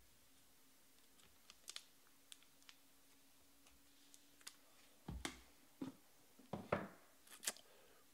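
Faint clicks and taps of a trading card in a clear plastic penny sleeve and hard plastic holder being handled, then a few louder knocks on the table from about five seconds in, as the holders are set down.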